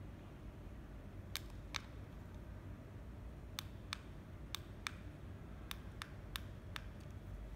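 Buttons of a small handheld remote control clicking as they are pressed: about a dozen sharp clicks, several in quick pairs, over a low steady hum.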